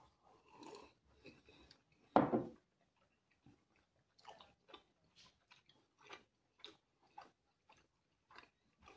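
A person eating pizza: close-up chewing, with many small, irregular wet mouth clicks in the second half. There is one brief louder mouth or breath sound about two seconds in.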